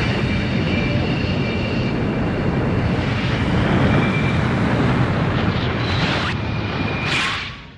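A Heisei Gamera film sound effect: a sustained jet-like rumble with a faint high whine, two brief whooshes near the end, then a fade-out.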